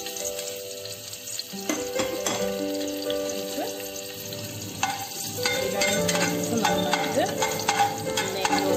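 Whole spices (star anise, cinnamon, cloves, cardamom) sizzling in hot ghee in a pressure cooker. From about halfway through they are stirred, and light clicks of the spoon against the pot join the sizzle. Instrumental background music plays along.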